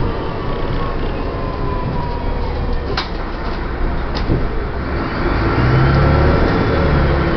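Inside an Optare Spectra double-decker bus on a DAF DB250 chassis, heard on the move: the engine and drivetrain rumble with a whine that slides down in pitch. Sharp rattles come about three and four seconds in, and the low engine rumble swells near the end.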